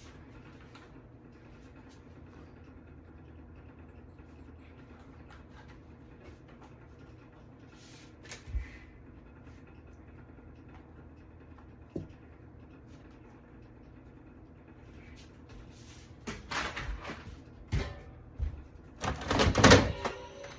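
A few isolated knocks, then a run of louder clattering knocks near the end, over a low steady hum.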